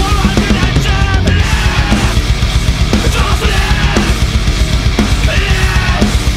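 Loud hardcore/metalcore band recording: distorted electric guitars riffing over bass and a drum kit at a fast, even pulse.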